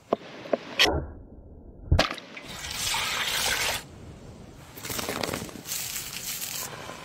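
A cleaver chopping through potatoes on a wooden board: a few sharp strikes in the first two seconds. Then a rushing hiss comes twice, a second or more each time.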